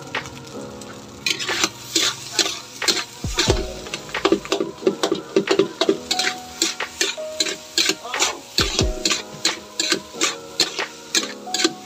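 Spatula scraping and knocking against a metal wok as fried rice is stir-fried, in quick repeated strokes about two or three times a second.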